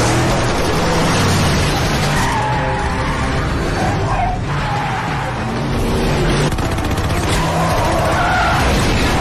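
Cars skidding with tyres squealing in short sliding whines, over engine noise, in a dense film action mix with a music score.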